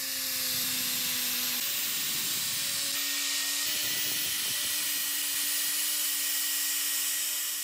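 Angle grinder with a felt buffing pad running steadily, polishing a steel knife blade coated in blue polishing compound: a steady motor whine with a hiss over it. The pitch shifts slightly twice, and the sound fades out at the end.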